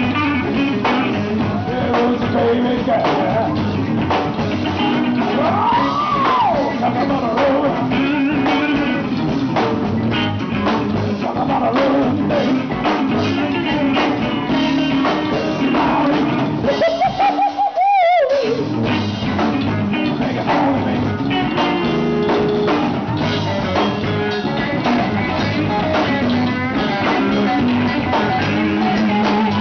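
Live blues-rock band playing: electric guitars, bass guitar and a drum kit, with a singer's voice, loud and continuous.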